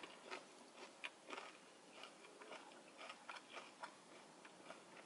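Faint, irregular soft clicks and smacks of someone chewing a cheese-filled jalapeño popper with the mouth closed.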